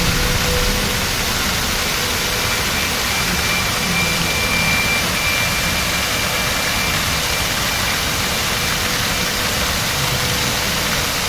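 A steady, even rushing noise that spans low to high pitches, with faint held tones under it.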